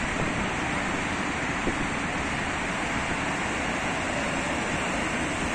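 Steady hiss and rumble of road traffic on a wide multi-lane road, with no single vehicle standing out.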